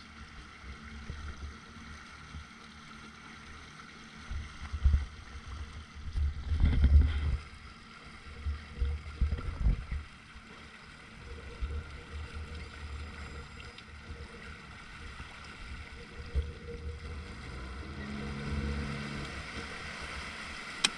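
Outboard motor running steadily as the boat travels over the water, with low gusts of wind noise on the microphone that are strongest about seven seconds in.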